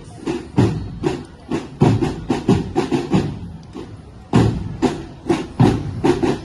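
Rhythmic percussive thumps, about two or three a second in an uneven pattern, with a short break a little before four seconds in.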